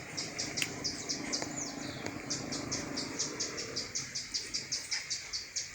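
A steady train of short, high chirps, about four to five a second, from a chirping insect such as a cricket.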